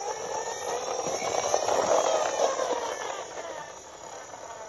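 Plastic toy ladder truck pushed by hand along gritty concrete, its wheels rolling with a rough, even noise that grows louder about two seconds in and then fades away.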